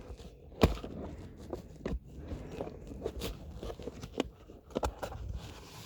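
Small packaging being handled and opened: a run of irregular crinkles, crackles and sharp clicks from a small box and the plastic-wrapped parts inside it.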